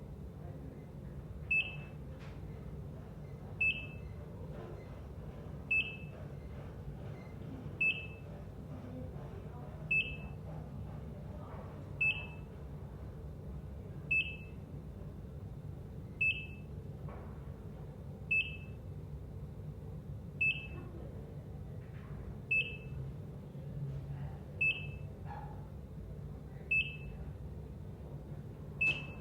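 ECG heart monitor beeping: a short, high beep repeating evenly about every two seconds over a low steady hum.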